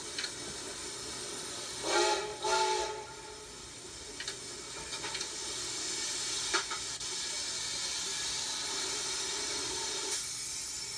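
Chesapeake & Ohio 4-8-4 #614 steam locomotive hissing steadily, with two short blasts of its steam whistle about two seconds in, then a few light clanks.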